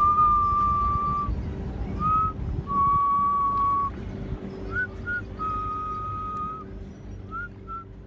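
A person whistling a slow tune: long held notes broken by short upward-flicking ones, over a low steady hum, growing quieter toward the end.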